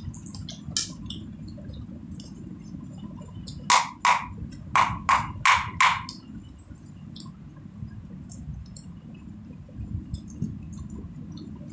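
A quick run of six sharp percussive hits, about a third of a second apart, over a steady low hum with scattered faint small clicks.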